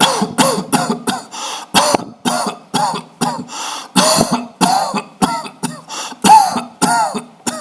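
A man coughing over and over in short, dry coughs, about three a second. The coughs are deliberately faked to test a dry-cough detector.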